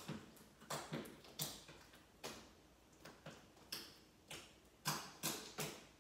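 White glue-and-borax slime being squeezed and worked by hand, its trapped air bubbles popping: a string of sharp wet clicks and pops, about two a second.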